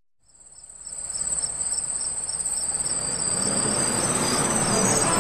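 A high, steady, pulsing trill like crickets chirping, fading in over the first second. Beneath it a low rumble slowly grows louder.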